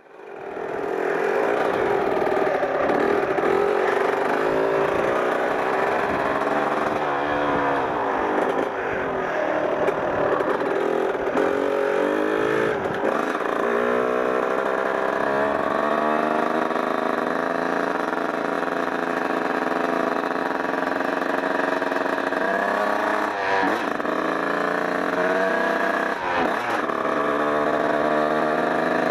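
1994 Kawasaki KX 125's single-cylinder two-stroke engine running while the bike is ridden, its pitch rising and dropping back again several times as it is revved and shifted. It fades in over the first second.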